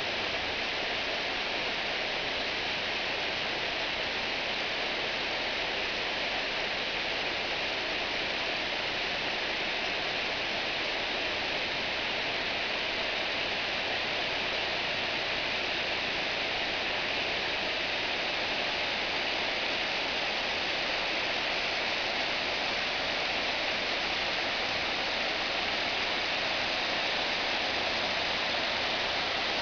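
Steady rush of a mountain creek running over rocks, an even hiss that does not change.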